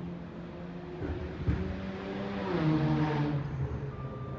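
Front-loader garbage truck's diesel engine running, with a single clank about a second and a half in; the engine then revs up, rising in pitch, and settles back. A reversing beeper starts near the end.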